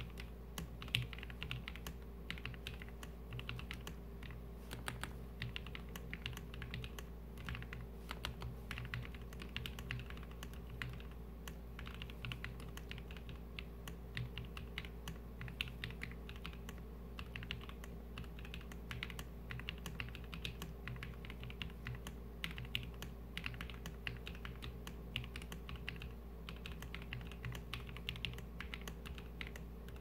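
Slow, steady typing on a Gerald65 mechanical keyboard with an acrylic plate and case and lubed Tecsee Blue Velvet linear switches, sitting directly on a bare desk: a continuous, uneven run of keystroke clacks.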